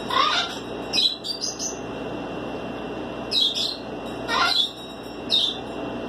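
Young raccoon chittering, short high chirps about once a second, some in quick runs of two or three notes, as it eats corn on the cob beside a kitten.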